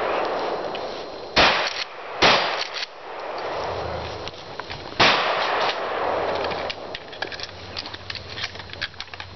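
Three shotgun shots, two close together about a second and a half in and a third about halfway through, each trailing off in a long echo. Light rustling and small ticks, like footsteps through leaf litter, follow near the end.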